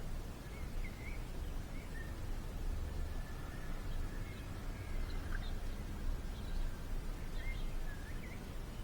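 Small birds chirping faintly, short scattered calls, over a steady low outdoor rumble.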